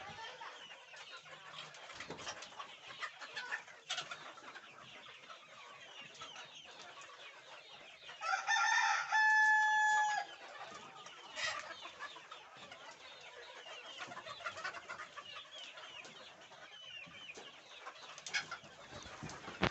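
A flock of Fayoumi chickens clucking and chattering steadily, with one rooster crow about eight seconds in, ending on a long held note, the loudest sound.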